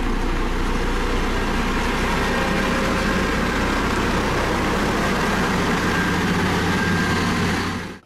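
Single-drum road roller's diesel engine running steadily, a deep even drone that cuts off near the end.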